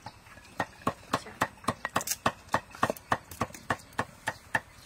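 Steady rhythmic knocking, about four strikes a second, of food being chopped with a knife on a wooden board.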